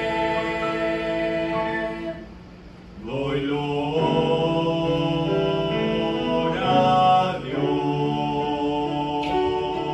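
Small mixed vocal group of two women and two men singing a hymn in harmony, holding long notes. The voices stop for under a second a little after two seconds in, then come back in together.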